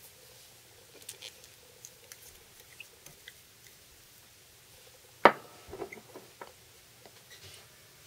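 Small clicks and scratches of hands handling a folding knife blade and a nail polish bottle while brushing the protective coating on, with one sharp knock on the wooden workbench about five seconds in.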